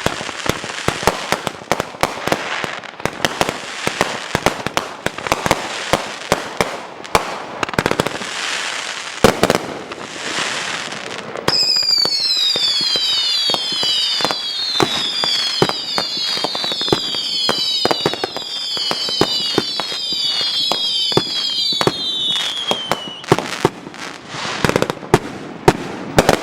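A 50-shot consumer aerial cake firing in rapid succession: dense pops and crackling bursts with a couple of heavier bangs. About halfway through, a long run of overlapping whistles sets in, each falling in pitch, until a few seconds before the end.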